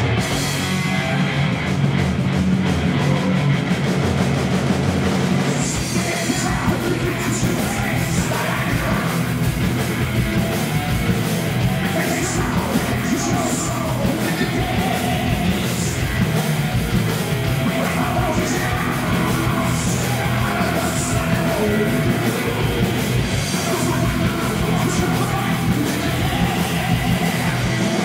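Live hard rock band playing loudly: distorted electric guitar, bass and drums, with a vocalist singing and yelling over them.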